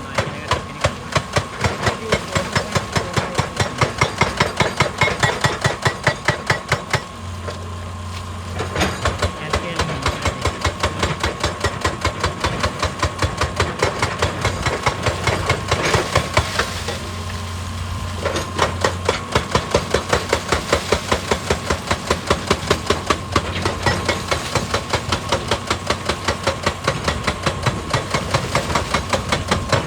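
Excavator-mounted hydraulic breaker hammering rock, rapid blows about three to four a second over the machine's steady engine, pausing briefly twice.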